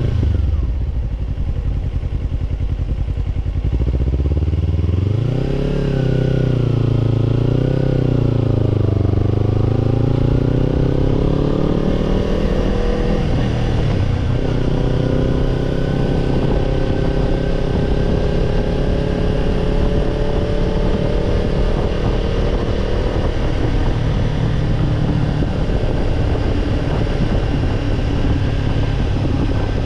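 Kawasaki Ninja 250 parallel-twin engine heard through a BEET Japan NASSERT Evolution Type II titanium slip-on muffler while riding. The revs rise and fall a few times about five seconds in, then climb slowly under throttle, with a brief dip midway before climbing again.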